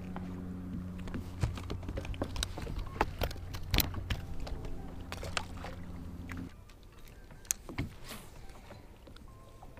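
Electric trolling motor humming steadily, then cutting off suddenly about six and a half seconds in. Frequent small clicks and knocks throughout, from rod and tackle being handled in the boat.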